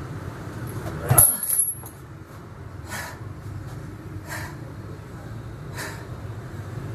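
Heavy metal workout chains clatter onto the floor about a second in, with a bright metallic ringing. Quieter short noises follow about every second and a half, over a low steady hum.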